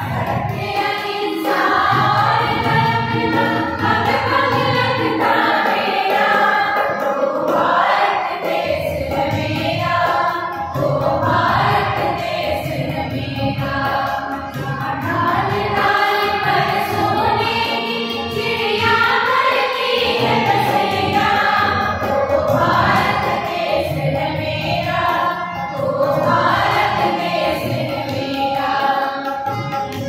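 A group of young women singing a Hindi song together, accompanied by tabla and harmonium.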